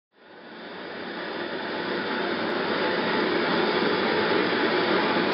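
Gas torch flame running with a steady rushing hiss as it heats metal, swelling in level over the first two seconds and then holding steady.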